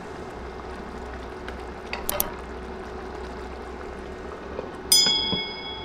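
Masoor dal with potatoes simmering in a pan, a steady soft bubbling. Near the end a glass pan lid with a metal rim is set down on the pan with a sharp clink that rings briefly and fades.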